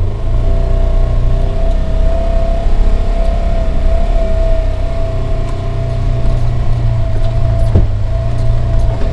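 Side-by-side UTV running as it drives along a rough woods trail, heard from inside its enclosed cab: a steady low engine rumble with a constant whine over it. A single sharp knock sounds near the end.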